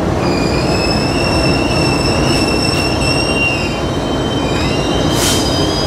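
A train's steel wheels squealing in a high, steady whine over a low rumble of rail traffic. The squeal rises slightly in pitch and fades after about three and a half seconds, then a second squeal follows near the end with a short hiss.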